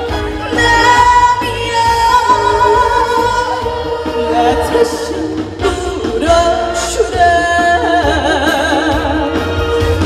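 A woman singing a Korean trot song live into a handheld microphone over backing music with heavy bass, holding long notes with vibrato near the end.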